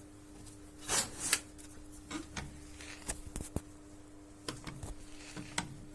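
Scattered light knocks, clicks and rustling as a Kia Ceed's engine is rocked by hand on an engine mount whose bolt has come undone. A faint steady hum sits under it.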